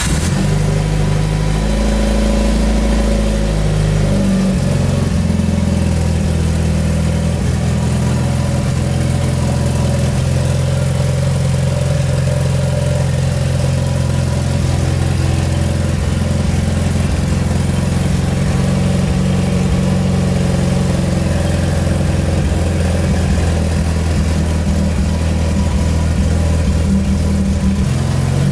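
Mitsubishi Lancer Evolution VIII's turbocharged 4G63 inline-four idling just after a restart, freshly topped up with oil. The idle steps down slightly about four seconds in and then runs steady.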